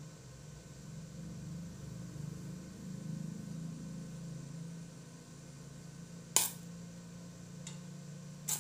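A low steady hum, with a sharp knock about six seconds in, a fainter one a second later and another near the end.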